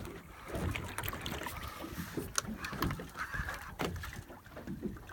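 Water sloshing and slapping against a boat's hull, with wind buffeting the microphone and a few sharp knocks.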